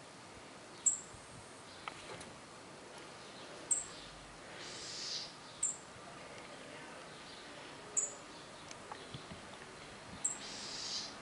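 A small bird giving a single short, very high, slightly falling chirp every two to three seconds, five times in all. A softer hiss swells and fades twice, once near the middle and once near the end.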